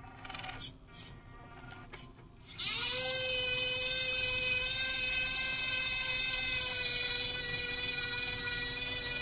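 Electric lift motor of an RC Linde H40 D model forklift whining steadily as the mast raises the forks and loaded crate. It starts suddenly about two and a half seconds in, rising briefly in pitch as it spins up.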